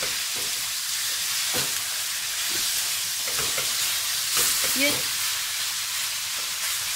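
Mutton liver pieces sizzling steadily in hot oil in a stainless steel wok, with a silicone spatula scraping and stirring them around the pan now and then.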